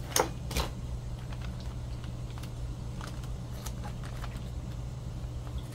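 Two sharp clicks close together at the start, then a few faint ticks, as scissors and a stapled paper page are handled on a desk. A steady low hum runs underneath.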